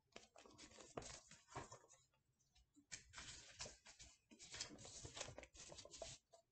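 Faint rustling and handling noise of a hardcover picture book being closed and turned around in the hands: irregular scuffs and a few soft knocks, in two stretches with a short pause between.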